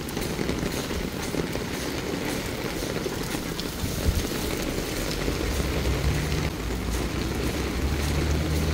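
Heavy typhoon rain pouring and splashing on pavement, with wind buffeting the microphone in a low rumble. A low steady hum joins about six seconds in.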